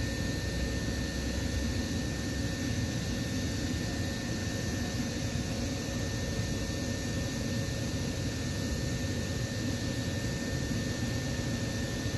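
Steady low rumble and hiss of outdoor background noise, with one faint high steady tone.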